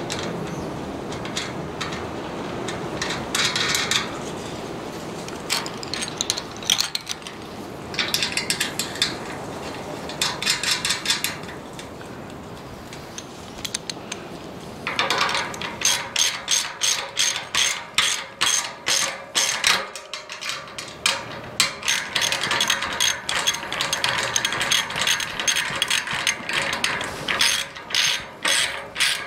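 Ratchet wrench clicking as bolts are tightened. A few short bursts come in the first half, then steady back-and-forth ratcheting at about two strokes a second through the second half.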